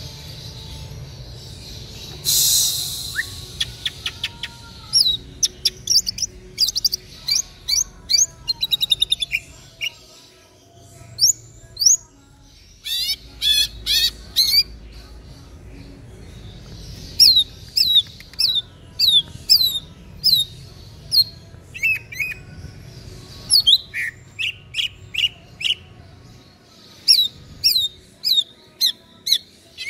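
Caged male cucak ijo (green leafbird) singing loudly: phrases of quick, sharp whistled notes that slide downward, strung in rapid runs with short pauses between phrases. There is a brief noisy rush a couple of seconds in.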